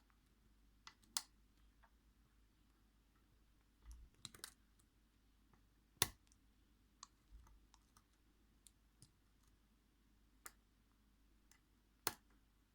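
Scattered faint metallic clicks of a steel hook pick working the spool pins inside an ASSA 600 lock cylinder. The clicks are irregular, with sharper ones about a second in, around six seconds in and near the end.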